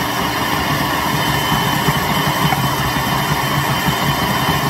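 Electric food processor running steadily on its chop setting, its blade chopping tomatoes and other salsa vegetables. A constant motor whine sits over the uneven churn of the wet mixture.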